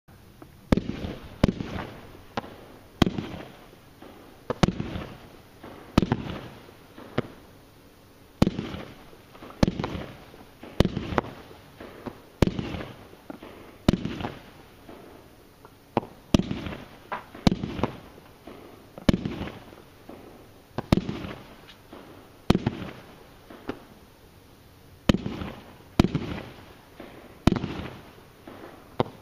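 Jorge Malachit 25-shot firework cake firing its shots one after another, a sharp bang every second or two, each trailed by fading crackle.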